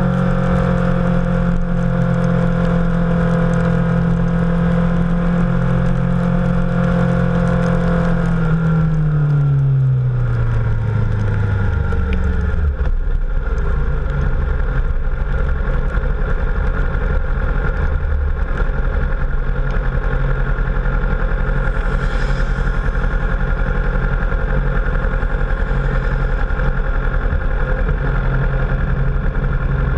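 Motorcycle engine at steady cruising revs, its note falling smoothly over a few seconds about a third of the way in as the bike slows, then settling into a low, steady rumble near idle. A constant rush of wind and road noise runs underneath.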